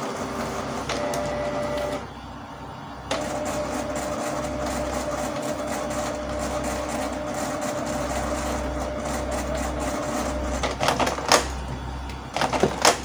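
Canon PIXMA iP2770 inkjet printer running a print job, its motors whining steadily with a short pause about two seconds in and a few sharp clacks near the end. It is printing normally again after its waste-ink absorber counter has been reset.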